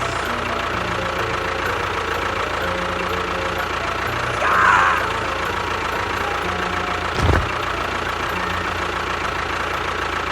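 An engine running steadily, with a brief higher-pitched sound about four and a half seconds in and a short thump about seven seconds in.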